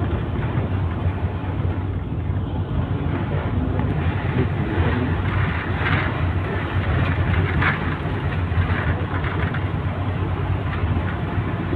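Steady rumble of a moving vehicle's engine and tyres on a mountain road, heard from on board. A couple of brief louder rushes come through around the middle.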